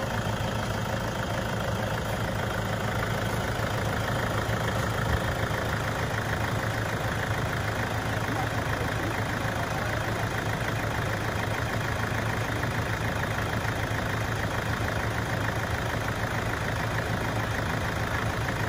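An engine running steadily at idle, a constant low hum under a wide even noise.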